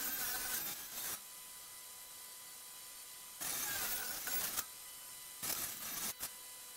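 Table saw running with a steady motor whine and cutting through a glued-up wood panel three times: a harsh ripping cut lasting about a second at the start, another at about three and a half seconds, and a shorter one near six seconds.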